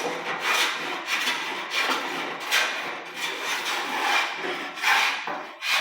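Wooden-bodied jointer hand plane taking quick repeated strokes along a board face, each stroke a swish of the blade shaving wood, about one every two-thirds of a second.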